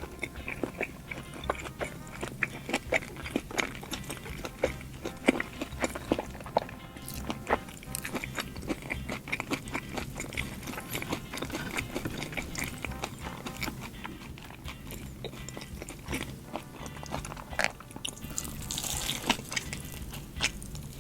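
Close-miked chewing and biting of a burger with sambal petai, wet mouth clicks and squelches coming irregularly several times a second. A short hissing rustle comes near the end.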